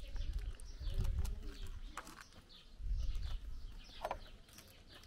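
Small birds chirping in short falling calls, over low rumbling that is strongest in the first second and about three seconds in.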